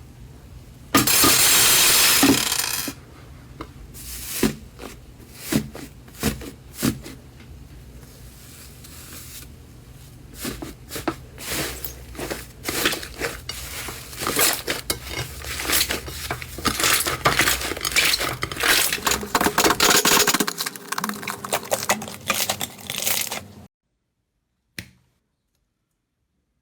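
Slime being squeezed and stretched by hand, with sticky crackling and popping. A loud rustling burst lasts about two seconds near the start, then the crackles and pops come thicker and faster until they stop abruptly near the end, followed by two faint clicks.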